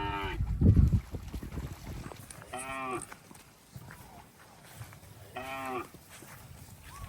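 Cattle calling with short moos, each about half a second long and rising then falling in pitch, repeated every few seconds: one trailing off at the start, then two more about two and a half and five and a half seconds in. A loud low thump sounds about a second in.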